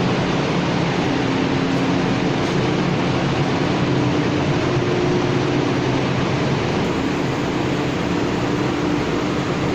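Industrial machine running steadily: a loud, even mechanical noise with a steady hum underneath and no changes.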